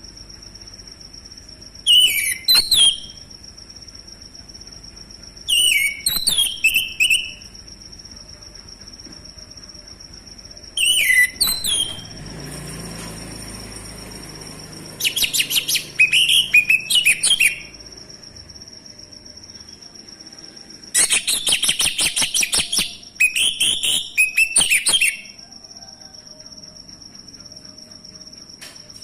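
A male orange-headed thrush singing in short phrases of quick, varied whistled notes, separated by pauses of a few seconds. Some phrases end in a rapid trill. A faint steady high tone runs underneath.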